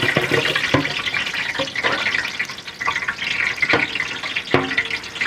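Green chillies sizzling as they fry in a large pot of hot ghee and oil with whole spices, a metal ladle scraping and knocking against the pot several times as it stirs.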